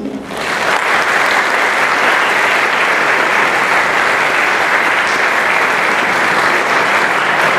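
Audience applauding, swelling quickly at the start and then holding steady.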